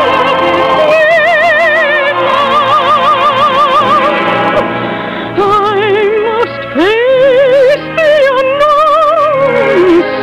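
Dramatic orchestral music from a 1950s radio broadcast, with melody lines played on a wide vibrato. The music eases off briefly near the middle, then swells again with a swooping upward glide about seven seconds in.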